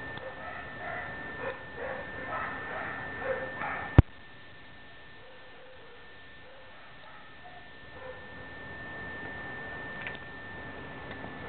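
Dogs barking, a string of barks over the first four seconds and a few fainter ones later. A sharp click comes about four seconds in. A steady high-pitched whine runs underneath throughout.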